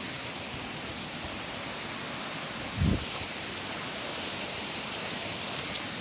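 Steady rushing of water on the way up to a waterfall, an even hiss with no break. A dull low bump about three seconds in.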